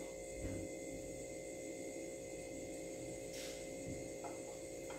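Quiet room tone with a steady electrical hum, and a few faint brief sounds of bread being handled on a plate.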